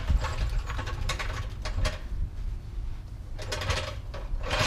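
Hand ratchet wrench clicking in short runs as bolts are turned, with a quieter pause in the middle.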